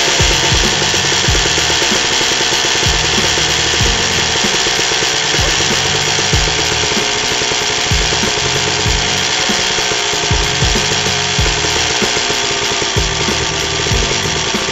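Kawasaki KX250 two-stroke motocross engine, freshly fitted with a new piston kit and bearings, running at idle with an uneven, irregular beat.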